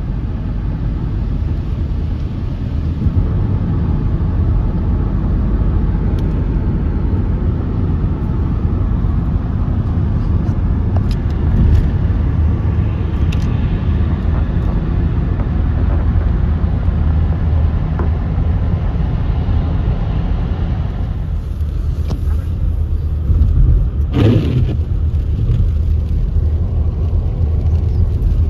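Road noise heard inside a moving car's cabin on a wet, slushy freeway: a steady low rumble of tyres and engine, with a brief louder whoosh near the end.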